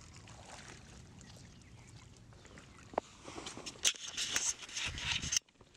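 Water splashing in shallow water as a hooked fish is brought in to a wading angler: a sharp click about three seconds in, then a run of splashes that cuts off suddenly near the end.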